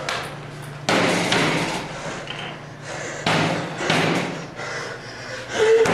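A fist slamming down on a ping-pong table: two heavy blows, about a second in and just past three seconds, each ringing on briefly.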